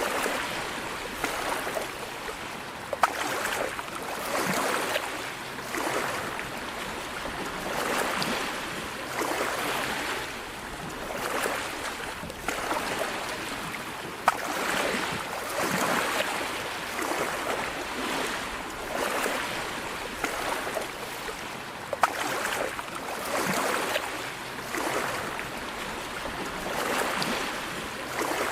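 Sea waves breaking and washing ashore, the surf swelling and falling every couple of seconds, with three brief sharp clicks.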